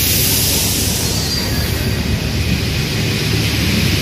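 Paris Metro Line 1 rubber-tyred train moving along the platform, a loud, steady rush of running noise with a faint rising whistle a little over a second in.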